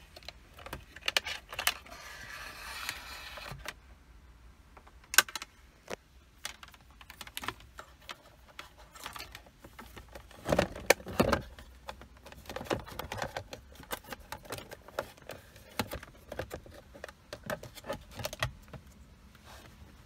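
Hands working a USB cable and plastic dashboard trim: scattered light clicks, taps and rustling, with a short scraping patch early and a couple of louder knocks about halfway through.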